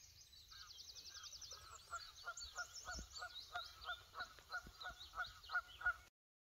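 Geese honking, a steady run of calls about two a second that grows louder, with small songbirds singing high above. The sound cuts off suddenly near the end.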